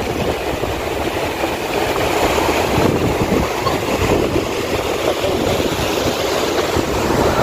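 Sea surf breaking and washing in over the shallows, a steady rough rush, with wind rumbling on the microphone.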